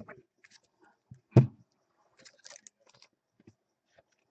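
Light clicking and rustling of baseball cards being handled, with one sharp thump about a second and a half in.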